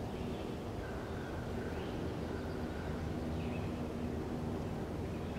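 Outdoor ambience: a steady low rumble with a faint hum, and a few faint, high bird chirps.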